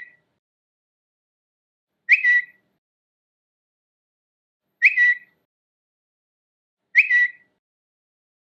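Twitter notification sound: a short, two-part electronic chirp, heard three times, about two to three seconds apart, with silence between and the tail of a previous chirp right at the start.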